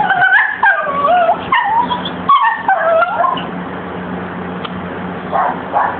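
Dog whining in high, wavering cries that slide up and down for about three seconds, then fall quiet, with a few short yelps near the end. A steady low hum runs underneath.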